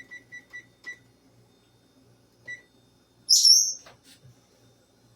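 Rapid electronic beeps from the oven's controls as the timer is set, dying away within the first second, and one more short beep about 2.5 s in. Then, about 3.3 s in, a pet bird gives one loud whistled call that slides down in pitch and then holds steady.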